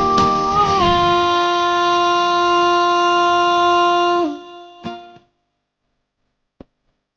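Background pop-rock music: one long held instrumental note over guitar that stops about four seconds in, followed by about two seconds of silence.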